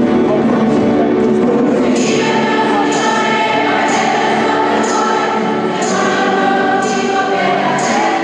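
A choir singing sacred music in a reverberant church, voices holding long notes, with short crisp accents about once a second from around two seconds in.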